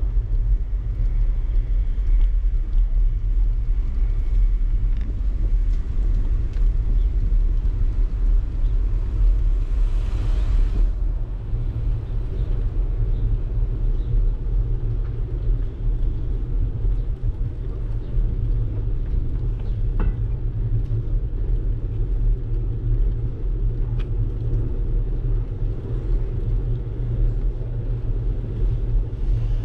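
Steady low rumble of a bicycle ride heard through an action camera's microphone: wind buffeting the mic and tyres rolling on pavement, with a brief hiss about ten seconds in.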